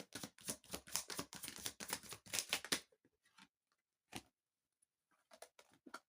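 Tarot cards being shuffled: a quick run of papery flicks for nearly three seconds, then a few scattered taps as the cards are handled.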